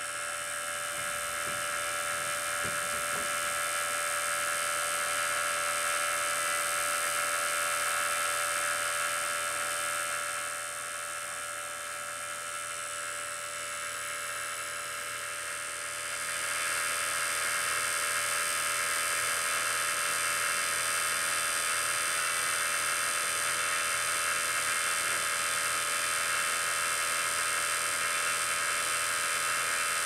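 Refrigeration vacuum pump running steadily while pulling a vacuum on an air conditioner's refrigerant lines, with a constant motor hum and hiss that is slightly quieter for a few seconds in the middle. The micron gauge reads about 3100 microns, so evacuation is still under way.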